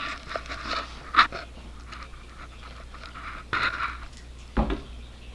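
Breathy panting close to the microphone, coming in a few soft puffs, with a short low bump near the end.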